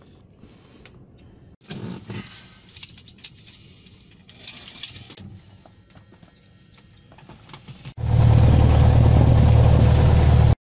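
Light aircraft cabin: faint rattling and clicks, then about eight seconds in the engine and propeller come in loud and steady as heard from inside the cabin, cutting off abruptly near the end.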